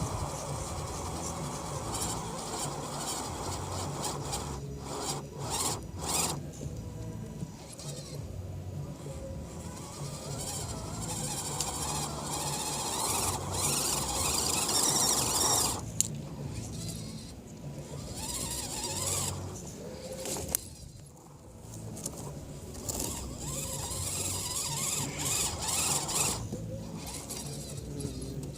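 Axial SCX10 Deadbolt RC crawler's electric motor and drivetrain whining as it climbs a dirt hill, the pitch rising and falling with the throttle, with a hiss of tyres spinning in the dirt. It stops briefly a few times, most clearly about five seconds in, at sixteen seconds and near twenty-one seconds.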